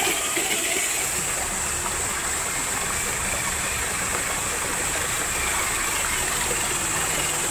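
Steady rush of shallow stream water as a Traxxas TRX-4 RC crawler wades through it, an even hiss with no clear motor pitch.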